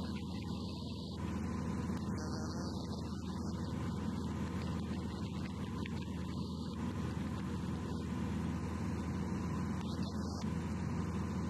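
Light aircraft's piston engine droning steadily in flight, with a hiss above it that cuts in and out.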